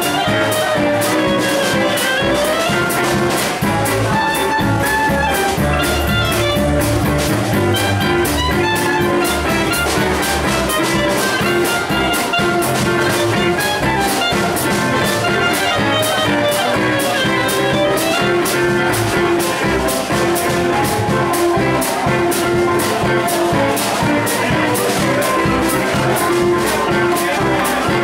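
Small swing jazz band playing live: a clarinet plays a winding melodic line over upright bass, strummed acoustic guitar and drums keeping a steady beat.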